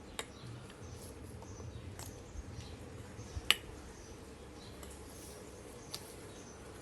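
A few light clinks of kitchen utensils, the sharpest about three and a half seconds in, over a quiet background with faint high chirps.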